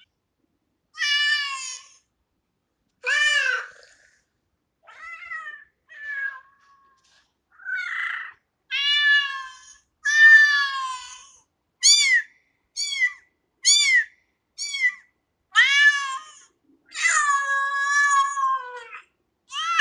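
Kitten meowing over and over: a string of high-pitched meows with short gaps between them, several quick short ones in the middle and one longer, drawn-out meow near the end.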